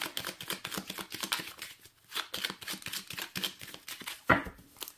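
A deck of Lenormand cards being shuffled by hand: a steady run of quick, irregular flicks and clicks, with one louder knock a little over four seconds in.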